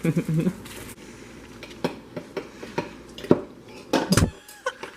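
A series of separate light knocks and clinks of small hard objects being handled, the loudest about three seconds in and again around four seconds in.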